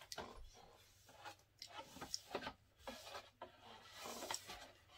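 Faint rustling and rubbing of a paper napkin wiped across a tabletop, with scattered small crinkles and taps.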